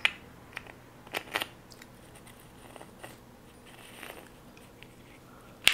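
Small clicks and taps of the parts of a Bache Brown Spinster Mk.VI spinning reel being handled and fitted together by hand. A louder, sharper click comes near the end as a part seats.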